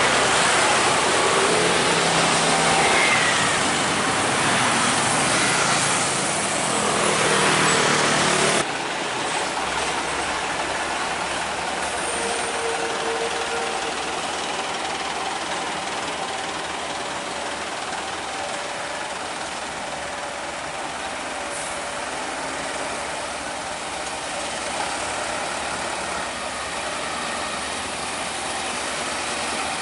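Heavy trucks and other road traffic passing. A louder rush in the first part cuts off suddenly about eight and a half seconds in, and steadier, quieter traffic noise with running truck engines continues after it.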